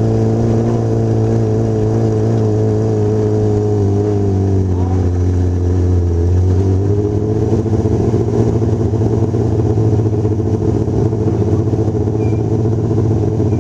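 A vehicle engine running steadily at low revs, heard from inside the moving vehicle; its pitch dips about four to six seconds in, then comes back up and holds.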